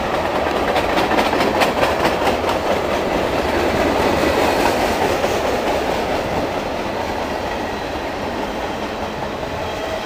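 Freight train cars rolling past close by: a steady rumble of steel wheels on rail, with a quick run of clacks over the rail joints in the first few seconds, easing slightly toward the end.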